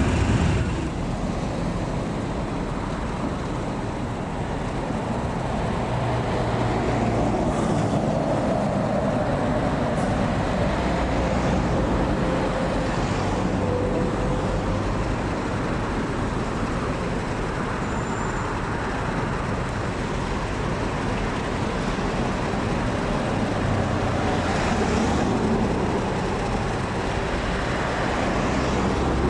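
Pair of Class 50 diesel-electric locomotives running in multiple, their English Electric 16CSVT V16 diesel engines running steadily as they move slowly along the line.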